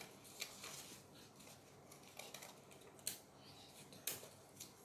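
Scissors cutting paper: a few faint, separate snips spread out, the sharpest about three and four seconds in.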